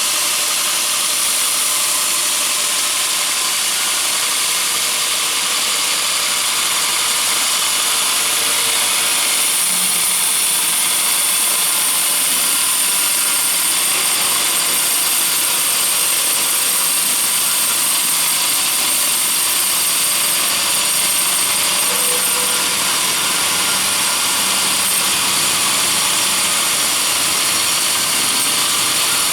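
Electric horizontal band sawmill running and sawing wood: a loud, steady, even hiss, mostly high in pitch, with no breaks.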